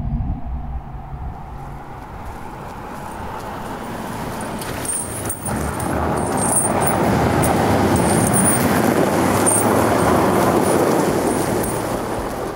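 A vehicle driving, its road noise swelling over several seconds and then easing off, after a deep low sound that fades out at the very start.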